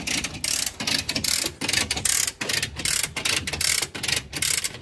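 Hand ratchet winch being cranked, its pawl clicking steadily about four times a second as it draws a chain taut to pull a tractor along the trailer deck.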